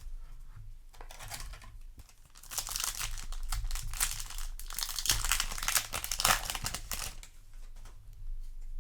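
Foil Yu-Gi-Oh! booster pack wrapper being torn open and crinkled: a short rustle about a second in, then a longer, louder stretch of crackling and tearing in the middle that dies down near the end.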